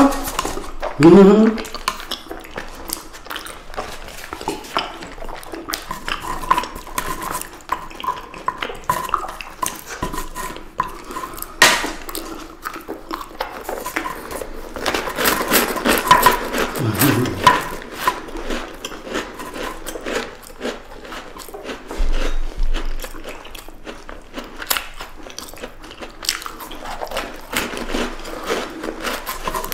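Close-miked eating: sharp crackling clicks and crunches of teeth biting through frozen chocolate-coated ice cream bars and small round biscuits, with wet chewing in between. Two brief hummed sounds come about a second in and again around the middle.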